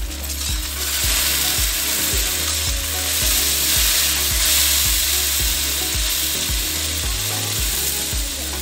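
Chopped okra and onion sizzling in a hot metal kadhai while a slotted metal spatula stirs and turns it, a steady frying hiss.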